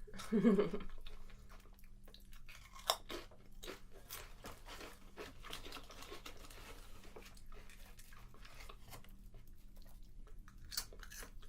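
A person chewing crunchy potato chips close to the microphone, with irregular crunches and one sharper crunch about three seconds in.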